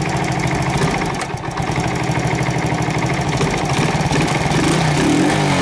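Yamasaki motorcycle's warm engine idling with the choke off, then revving near the end as the throttle is opened, the pitch rising and dipping. The owner is showing a running fault in which the warm engine stalls.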